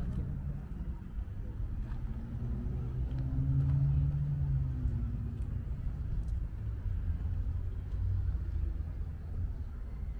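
Low outdoor rumble, with a low hum that swells and fades about four seconds in.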